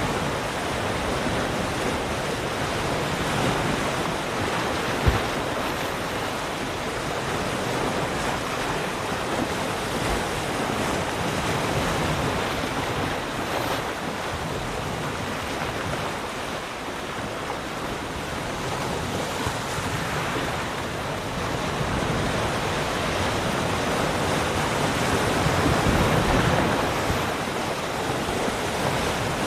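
Ocean surf: waves breaking and washing in a continuous rush that slowly swells and eases, loudest about 26 seconds in, with wind noise on the microphone. A short click about five seconds in.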